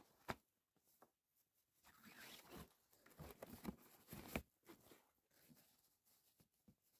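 Cord being pulled taut and threaded through the lashing over a fabric sled cover: faint rustling and scraping of rope on cloth, with a few sharp clicks, busiest in the middle.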